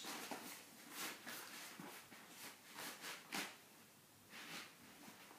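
Soft rustling and scuffing as cricket gear is handled and moved about, a series of short scuffs about half a second to a second apart.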